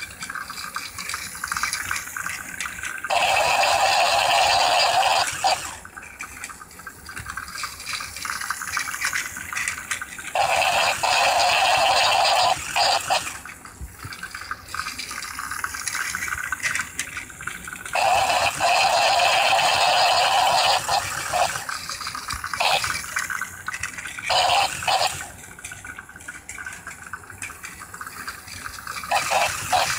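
Battery-powered Plarail toy train running laps on plastic track, its small motor and gears whirring and the wheels rattling over the track joints. The sound swells for two or three seconds about every seven and a half seconds as the train comes round the loop close by.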